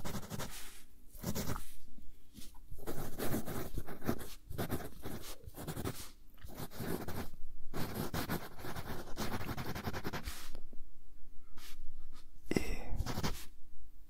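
Wooden pencil scratching across lined paper in handwriting, in irregular bursts of short strokes with brief pauses between words.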